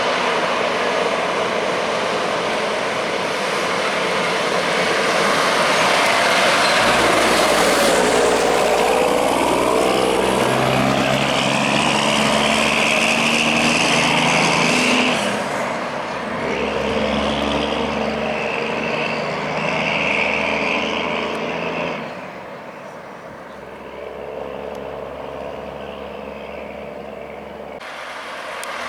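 Heavy truck driving past on the road: loud engine and tyre noise, its pitch sweeping down as it goes by. The engine note then climbs and drops in steps as the driver works through the gears, and it fades about two-thirds of the way through, with another vehicle coming up near the end.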